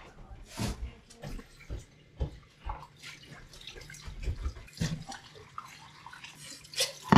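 Kitchen faucet running into a sink as dishes are rinsed by hand, with scattered clinks and knocks of dishware.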